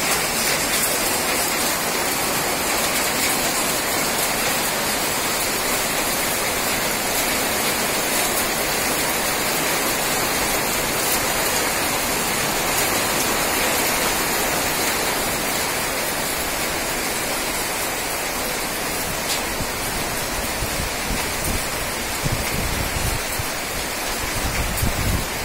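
Heavy rain pouring steadily, a dense even hiss with a few faint drop ticks. In the last few seconds wind gusts buffet the microphone with low rumbles.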